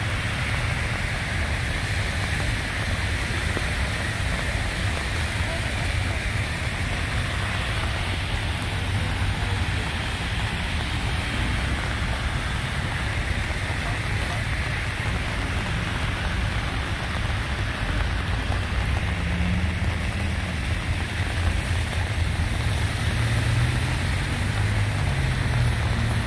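Steady rain falling on a flooded street, over a constant low rumble of traffic; a vehicle engine grows louder near the end.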